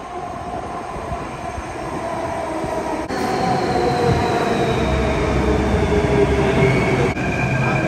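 Delhi Metro train pulling into an underground station: a rumble of wheels with a motor whine that slowly falls in pitch as the train slows, growing louder about three seconds in.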